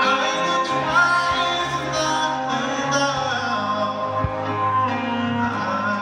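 A live acoustic arrangement of a pop song: a singer holding long notes over guitar and band, played through an arena sound system and recorded from within the crowd.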